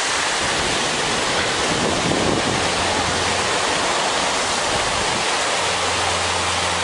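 Waves washing up on a sandy beach, a steady rushing noise. A low steady hum joins about five and a half seconds in.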